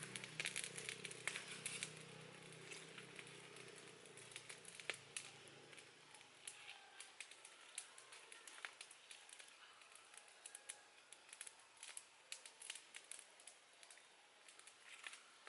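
Small wood fire crackling under a cooking pot, with irregular sharp pops and snaps.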